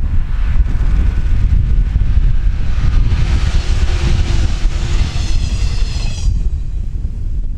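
JR 115 series electric train passing, heard under heavy wind buffeting on the microphone; a hiss and a high whine swell in the middle and stop abruptly just after six seconds in.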